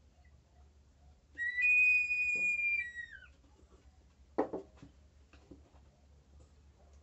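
Small ceramic water whistling vessel sounding as water shifts inside it and pushes air through its whistle: a high, bird-like two-note whistle held about two seconds, sliding down in pitch as it dies away. About three seconds later comes a single knock as a clay vessel is set down on the table.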